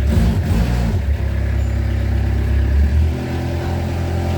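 Diesel engine running just after a glow-plug-preheated start, a loud steady low drone. About three seconds in its note shifts and it settles into a new steady speed.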